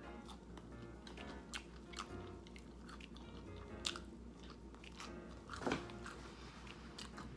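Close-up mouth sounds of chewing and biting breaded vegan chicken nuggets: irregular soft crunches and clicks, with one louder sound about two-thirds of the way through, over quiet background music with a steady beat.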